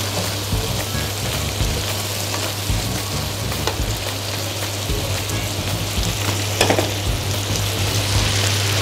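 Mushrooms and vegetables sizzling in a hot frying pan as wine and rum cook off, stirred with metal tongs that click against the pan now and then, most sharply about six and a half seconds in. A steady low hum runs underneath.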